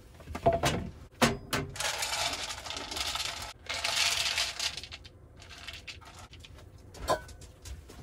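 Water poured from a container into a bowl, in two pours of about two seconds and one second with a short break between, after a few knocks of handling in the first second or so; a single knock near the end.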